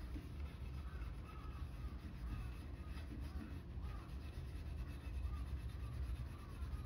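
A crow cawing repeatedly, faint, over a steady low rumble.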